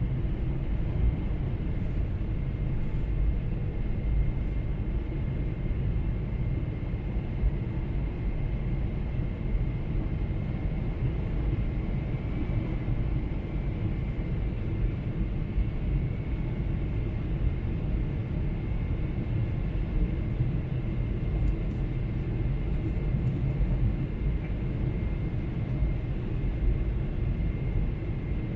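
Airliner cabin noise in flight: a steady low rumble of the jet engines and airflow, with a faint steady high whine over it.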